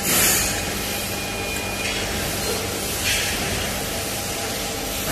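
Tube laser cutting machine running with a steady hum, with short bursts of hiss at the start and again about three seconds in.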